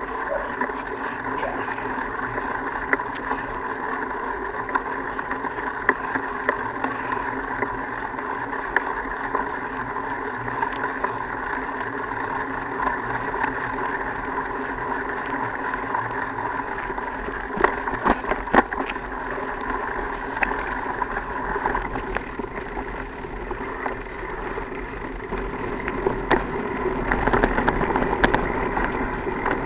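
Steady riding noise from a bicycle on a dirt trail, with a cluster of sharp knocks a little past the middle and growing louder near the end.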